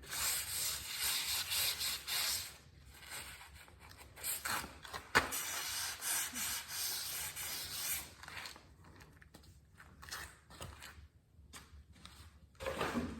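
Rubbing and scraping handling noise for about eight seconds, with one sharp click about five seconds in, then a few faint ticks and rustles.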